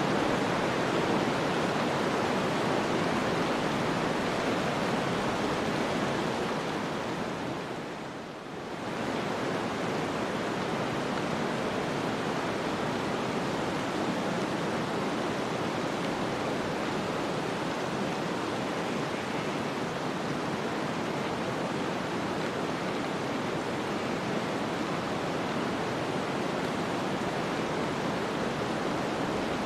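Steady rushing noise of snowstorm wind, dipping briefly about eight seconds in.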